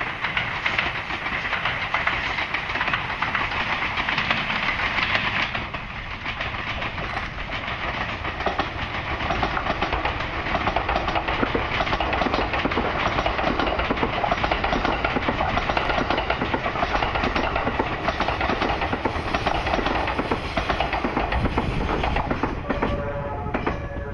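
JR East's E001 Train Suite Shiki-shima cruise train running past on the rails. It grows louder after the first few seconds, holds through the middle, and falls away near the end as it passes.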